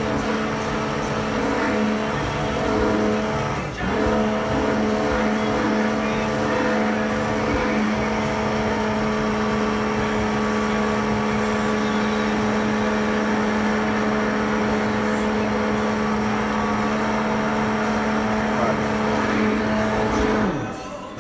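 Hand-held immersion blender running steadily, its blade puréeing red berry coulis in a tall plastic beaker. It cuts out for a moment about four seconds in, runs again, then is switched off near the end, its pitch falling as the motor winds down.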